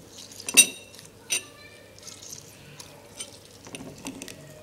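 A metal teaspoon clinking against a drinking glass as half a lime is squeezed by hand over it: two sharp ringing clinks in the first second and a half, then lighter taps.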